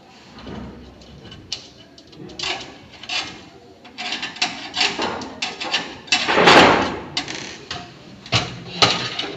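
Clicks, knocks and rattles of a computer power supply unit being unscrewed and worked free of a metal desktop case, with one loud scrape about six and a half seconds in as the unit slides out.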